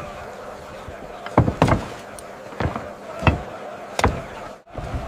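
Sound-effect knocks of hammers striking stone, about five at irregular intervals over a steady background, with a brief gap near the end.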